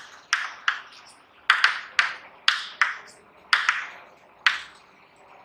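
Chalk writing on a chalkboard: about ten short, sharp taps and scratches at an uneven pace as a word is written in cursive.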